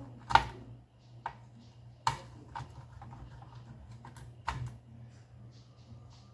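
Scattered clicks and knocks of hard laptop parts being handled during disassembly: a sharp knock about a third of a second in, then several lighter clicks and taps, with another knock a little past the middle.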